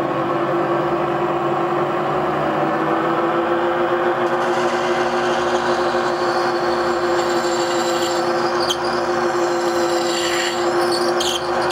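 Faceting machine running with its sintered diamond lap spinning fast under a water drip, a steady motor hum. From about four seconds in, a lab-created corundum boule is pressed and worked back and forth on the wet lap, adding a grinding hiss: the new lap is being broken in by knocking down high diamond points that would scratch a stone.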